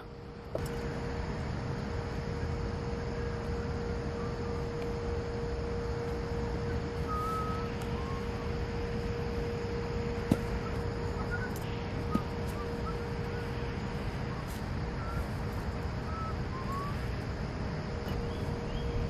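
Outdoor ambience: a steady low rumble under a constant hum, with scattered faint bird chirps and two sharp clicks about halfway through.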